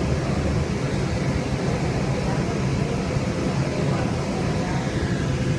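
Steady low rumble and running noise of a Link light rail train in motion, heard from inside the car.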